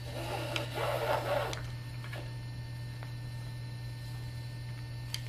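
Rope rasping as it is pulled through the vertical tuning ropes of a small rope-tuned djembe for about a second and a half, while a Mali weave is worked in to tighten the drum head; a couple of faint ticks follow. A steady electrical hum runs underneath.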